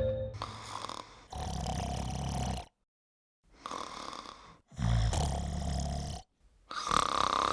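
A person snoring: about four rough snore breaths, each a second or so long, with short dead-silent gaps between them.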